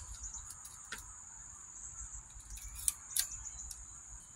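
A few faint metallic clicks and rattles from handling a Daisy Buffalo Bill lever-action BB gun between shots, over a steady high-pitched drone.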